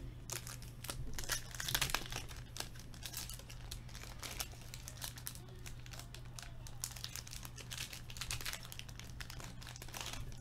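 Foil hockey card pack wrapper crinkling and tearing as it is ripped open by hand, in irregular crackling bursts, densest about two seconds in and again near the end, over a steady low hum.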